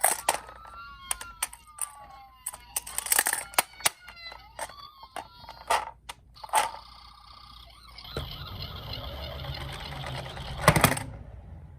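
Battery-powered toy ambulance sirens wailing in overlapping rising and falling tones, with sharp plastic clicks and knocks as the die-cast minicars are handled. About eight seconds in, a rattling noise sets in, typical of toy cars rolling down a plastic slope, and it ends in a loud clatter just before the close.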